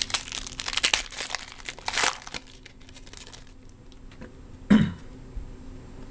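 Trading-card pack wrapper crinkling and tearing open, with dense crackling that dies down after about two seconds. Near the end, one brief cough.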